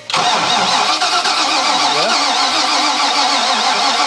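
Starter cranking a 2000 MerCruiser 7.4 L (454 ci) MPI big-block V8 at a steady, even rate without the engine catching. The engine turns over but will not run after an overheat and hydrolock.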